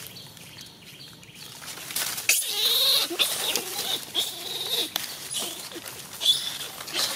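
Young macaque squealing: high, wavering shrieks that start about two seconds in, carry on for a few seconds and come again near the end, during a scuffle between monkeys, with leaves rustling underfoot.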